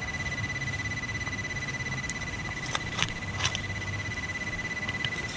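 Metal detector's steady high electronic tone held over a target, with a few sharp clicks and scrapes of digging in hard ground.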